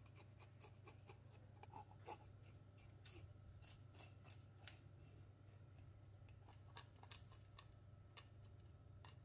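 A chef's knife tip scraping leftover scales off a whole fish on a plastic chopping board: faint, irregular scratchy strokes, several a second, over a steady low hum.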